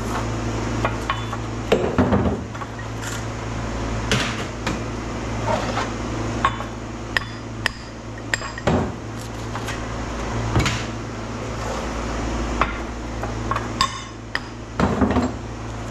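Irregular metallic clanks and knocks of scrap transformer cores and copper coils being handled and struck at a press, over a steady low hum.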